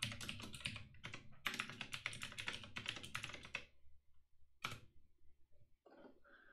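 Typing on a computer keyboard, entering a web address: two quick runs of keystrokes, then a single click about two-thirds of the way in.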